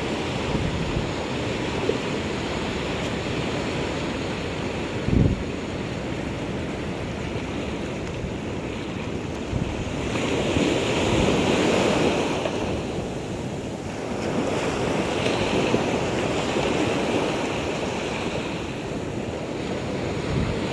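Small sea waves breaking and washing up on the shore, with wind buffeting the microphone. The surf swells louder twice in the second half. A brief low thump comes about five seconds in.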